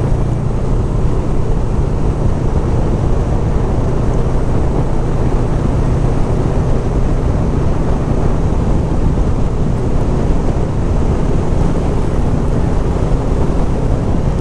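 Honda VFR800F V4 motorcycle engine running at a steady cruise, heard with the wind rush of riding.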